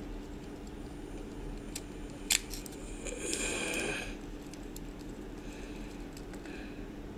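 Flathead screwdriver turning a brass terminal screw in a plastic three-pin mains plug: a sharp click about two seconds in, then a short scraping rasp of metal on metal and plastic, with a few faint ticks over a low steady hum.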